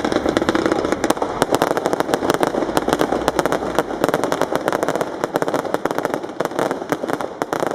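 Fireworks going off in a rapid, dense stream of sharp crackles and pops, many each second, starting abruptly, over a continuous rushing noise.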